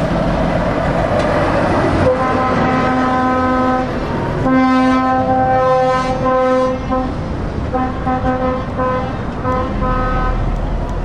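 Truck air horn sounded repeatedly over the noise of passing lorries: two long blasts, then a string of short toots near the end, all on one steady pitch.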